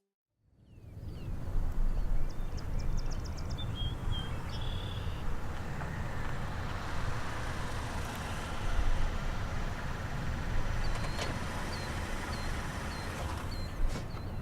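Outdoor ambience fading in about half a second in: a steady low rumble, with small birds chirping over it, more often near the end.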